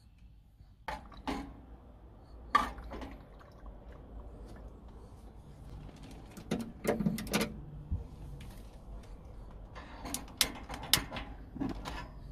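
A spoon knocking and scraping against a small saucepan as pasta and tomato sauce are stirred, in scattered sharp clacks and clatters, several in a quick cluster about seven seconds in and again near the end, over a faint steady hiss.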